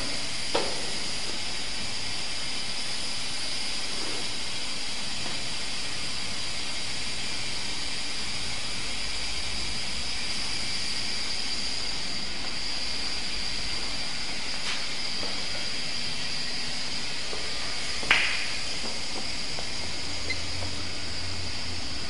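Paper napkin machine running with a steady hiss and a high, even whine, no clear rhythm; a single sharp knock about 18 seconds in.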